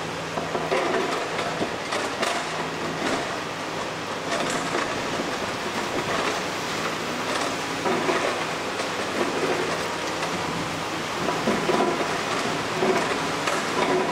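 Diesel engine of a Daewoo Solar 255LC-V crawler excavator running steadily under load as it digs and swings, with irregular metallic clanks and knocks from the working bucket and from soil dumped into a steel dump truck bed.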